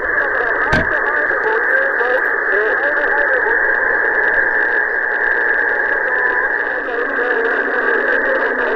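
A 27 MHz citizens-band AM transceiver's speaker receiving: a steady rush of static with faint, wavering distant voices coming and going under it, stations heard by sporadic-E skip. A sharp click comes just under a second in.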